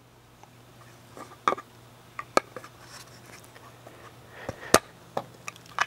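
Flathead screwdriver clicking and scraping against a pool pump's plastic seal plate while prying out the old ceramic seat of the shaft seal, which is glued in. Irregular sharp clicks a second or so apart, the loudest about three-quarters of the way through.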